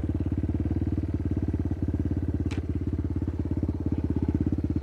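Small dirt bike engine idling steadily with a rapid, even putter, holding one pitch with no revving.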